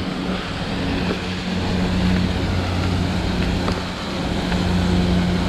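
Steady rushing of a waterfall and the water running over the stony path, with a steady low hum underneath. It swells somewhat, dips about four seconds in, then swells again.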